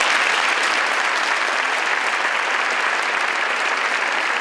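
Audience applauding: a dense, steady sound of many hands clapping that sets in all at once, right after a speech ends.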